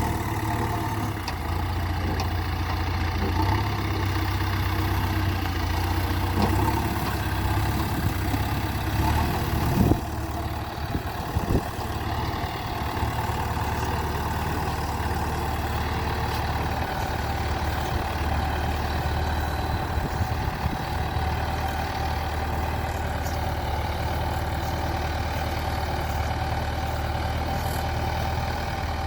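JCB 3DX backhoe loader's diesel engine running steadily, with a couple of brief knocks about ten and eleven seconds in.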